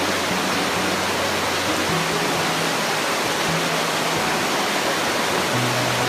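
Steady rush of a mountain creek cascading over boulders below Amicalola Falls, with background music's low sustained notes changing every second or two.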